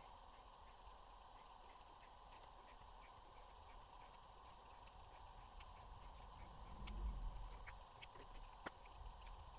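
Faint ticks and scratches of a paint pen tip on paper as patterns are drawn, with a brief low rumble about seven seconds in.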